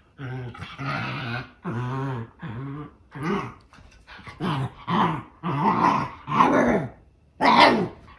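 An 18-week-old Shiba Inu puppy is vocalizing at another dog in play, the breed's typical "talking". It makes a run of about a dozen short pitched calls, each under a second, that bend up and down in pitch, with a brief pause near the end.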